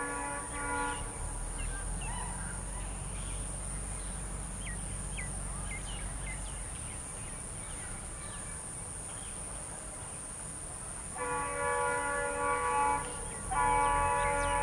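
Approaching Indian Railways ALCo diesel locomotive sounding its multi-tone horn: a chord that stops about a second in, then again about eleven seconds in for some two seconds, and once more near the end. Between the horn calls the locomotive's diesel engine is a steady low rumble, with birds chirping.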